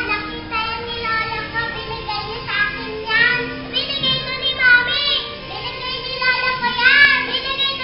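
A child singing in a high voice, the notes arching up and down, loudest about five and seven seconds in.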